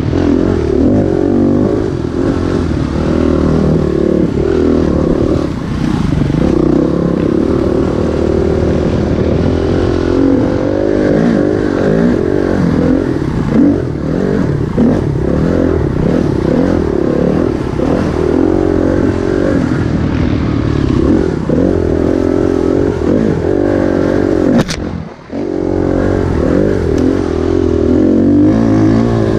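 Dirt bike engine revving up and down with the throttle while riding over rough trail, with clatter from the bike. A single sharp knock about 25 seconds in, followed by a brief drop in the engine sound.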